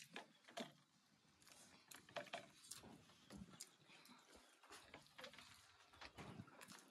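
Near silence with faint, scattered mouth sounds of people chewing and eating momos: soft smacks and small clicks coming irregularly.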